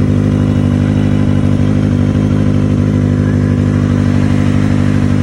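Kawasaki Ninja ZX-25R's 250 cc inline-four engine running at a steady idle, now starting after the starter relay was replaced.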